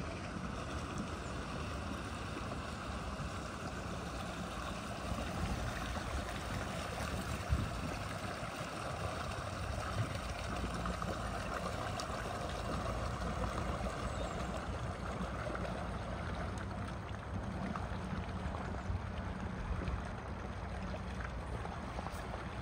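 Ford Fiesta hatchback wading slowly through deep floodwater: steady rushing and sloshing of water pushed around its body and wheels, over the low hum of its engine.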